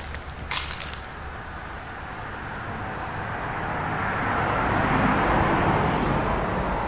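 A vehicle passing by, its noise swelling to a peak about five seconds in and then fading, with a brief rustle of handling near the start.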